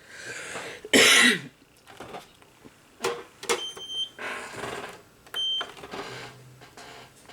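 A single loud cough about a second in, followed by two short, high electronic beeps from a UV/LED nail curing lamp being started for its 60-second cure.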